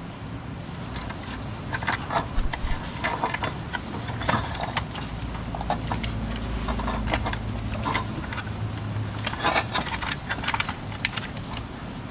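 Hand tools and metal parts clinking and knocking in irregular bursts during engine-bay work, over a low steady hum.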